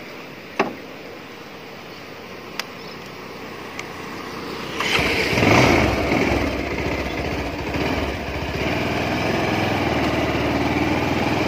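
A few sharp clicks, then a motorcycle engine starts about five seconds in and keeps running steadily as the bike moves off.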